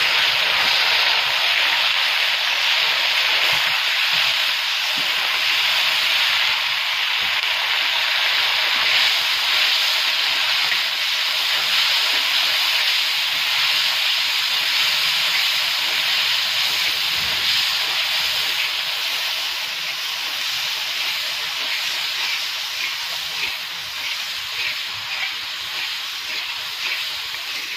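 Raw chicken mince sizzling loudly in hot ghee with onions in a large iron karahi, its water cooking off as it fries; the sizzle eases a little after about twenty seconds.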